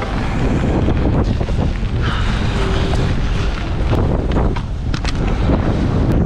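Wind buffeting the microphone on the deck of a sailboat under way, with the rush of water along the hull underneath.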